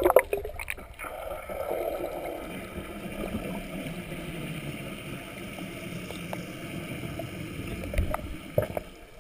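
Swimming-pool water heard through a camera held underwater: a splash fading as the camera goes under, then a steady, muffled rushing of water with a few faint knocks.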